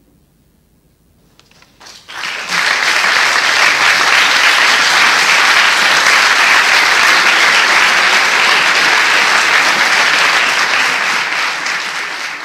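After about two seconds of near silence, an audience breaks into applause that holds steady and dense, easing off slightly near the end.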